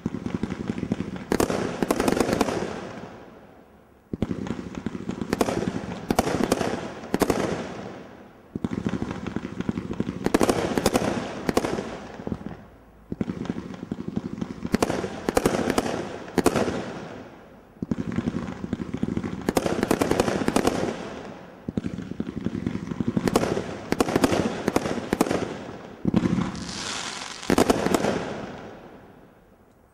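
Brothers Open Fire II 42-shot fan barrage firing: about seven waves of rapid shots and star bursts, each a few seconds long and fading out in a hiss, one starting roughly every four to five seconds.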